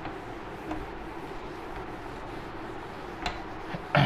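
Whiteboard duster rubbing across a whiteboard as the board is wiped clean, a steady low scrubbing noise. A small click comes a little after three seconds, and a sharper knock right at the end.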